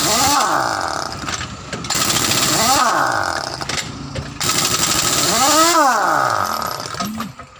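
Pneumatic impact wrench run in three bursts of about two seconds each, with a hiss of compressed air and a motor whine that rises and falls, typical of undoing truck wheel nuts.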